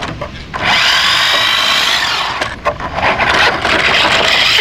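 Remote-control toy truck's electric motor and gears whining as it drives, in two runs with a short break about halfway.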